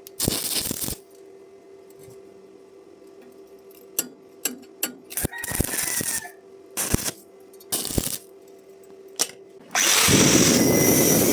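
Stick welding arc: several short crackling bursts as the electrode is struck and the arc flares and drops out, then from about ten seconds in the arc catches and burns with a steady loud crackle and hiss. A steady hum sounds underneath the quiet gaps.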